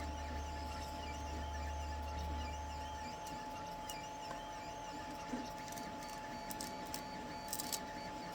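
A steady machine whine with a low hum that stops about three seconds in. A few faint, sharp clicks come later, from resin 3D-print supports being snapped off the model.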